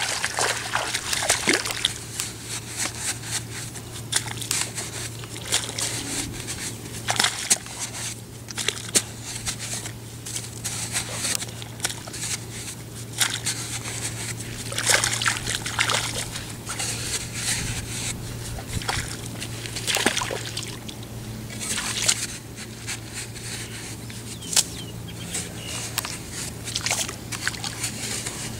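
A long-handled digging tool chopping and scraping into wet clay soil in irregular strikes, with wet mud squelching and water sloshing and trickling.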